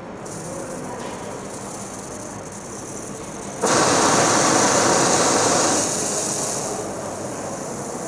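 Oxy-acetylene welding torch flame, burning acetylene from a calcium carbide generator mixed with oxygen, giving a steady hiss. About three and a half seconds in it turns much louder and harsher as the oxygen is opened up, then eases back near the end as the flame is set to neutral.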